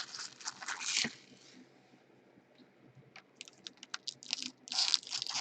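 Crinkling of a foil trading-card pack wrapper for about the first second. After a short quiet, a run of light clicks and a brief rustle as cards are handled.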